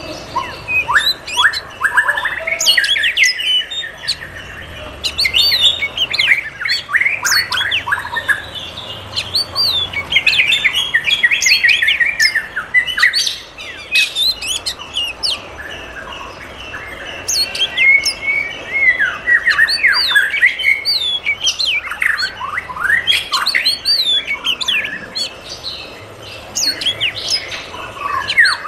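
A flock of aviary birds chirping and calling, many quick, high, falling chirps coming in busy bursts with short lulls.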